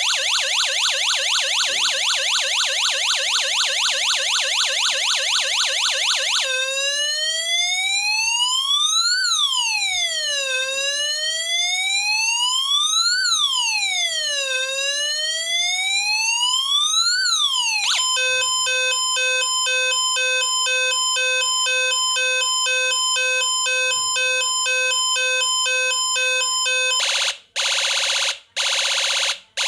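UM3561 siren-generator chip cycling through its electronic siren sounds from a small speaker. First comes a fast warble, then from about six seconds a slow wail rising and falling about every four seconds. From about eighteen seconds it switches to a two-tone hi-lo, and near the end the tone is chopped on and off about once a second.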